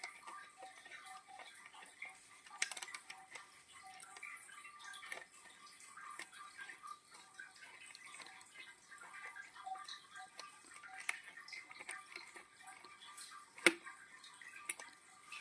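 Light, scattered metal clicks and ticks from handling the clamp collars of a gas cylinder removal tool as collar B is tightened onto an office-chair gas cylinder, with one sharper click near the end.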